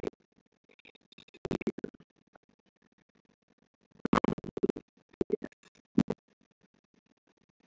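Bursts of computer mouse clicking and scratchy handling noise, in short clusters about a second in and again from about four to six seconds in.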